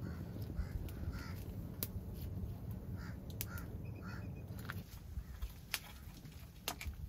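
Crows cawing several times, short separate calls, over a low rumble that fades about five seconds in. Sharp clicks and snaps are scattered throughout.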